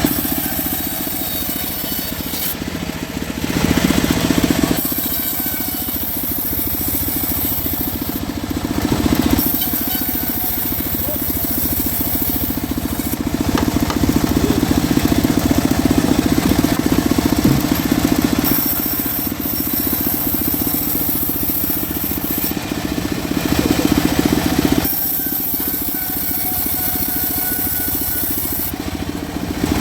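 Homemade bandsaw mill running and sawing through mahogany wood, a steady machine hum under the rasp of the blade, growing louder for stretches every few seconds.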